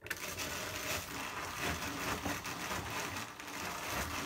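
Hand-cranked drum carder turning, its wire-toothed drums brushing wool fibre onto the large drum as the batt is built up. The steady scratchy whirring starts abruptly.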